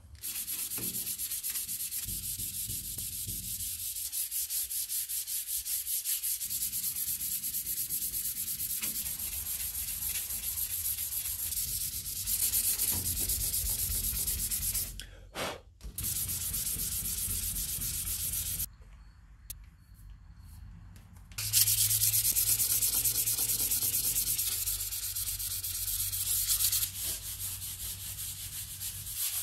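Hand sanding with sandpaper: quick back-and-forth rubbing over dried glazing putty filling paint chips on painted steel body panels, smoothing them before primer. The rubbing breaks off briefly a little past halfway and again for a couple of seconds, then comes back louder.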